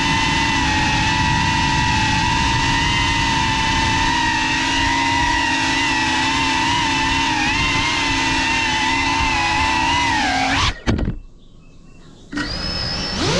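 FPV quadcopter's brushless motors and propellers whining at a steady throttle. About 11 seconds in the whine dips and cuts out for a second and a half, then comes back with a rising pitch as the motors spin up again.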